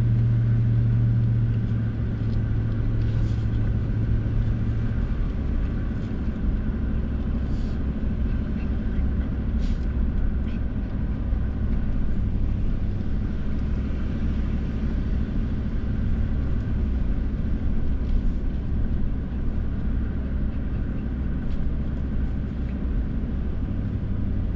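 A tow vehicle's engine and tyre noise heard from inside the cab as it drives along. A steady low hum drops in pitch about five seconds in and then holds.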